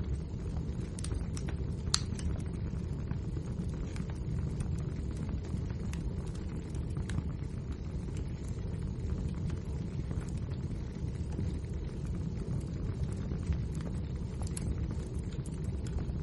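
Firewood burning in a fireplace: a steady low rumble with scattered crackles and pops, one sharper pop about two seconds in.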